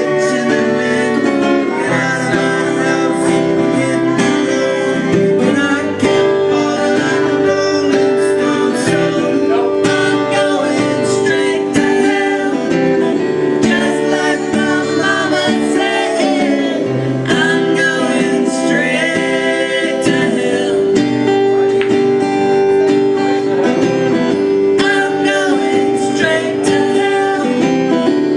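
Live acoustic music: a strummed acoustic guitar with a violin playing the melody over it.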